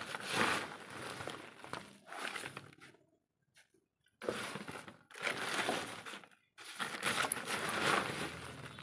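Hands scooping and pressing crumbly potting mix of soil, dung and kitchen waste into a plastic bucket around plant cuttings. It comes as noisy bursts, with a silence of about a second about three seconds in.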